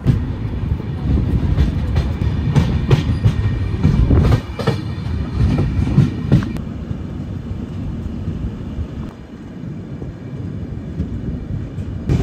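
Passenger train running on the rails: a steady rumble with irregular sharp knocks through the first half, settling into a smoother, slightly quieter rumble.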